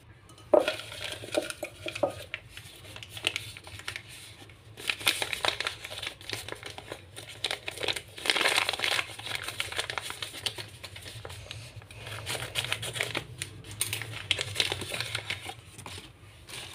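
Homemade paper mystery bag crinkling and rustling in the hands as it is handled and opened, in irregular bursts of crackle with short pauses between.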